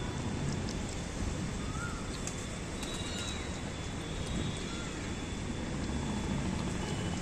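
Outdoor background ambience: a steady low rumble with a thin, steady high tone, and a few short, faint bird chirps about two, three and five seconds in.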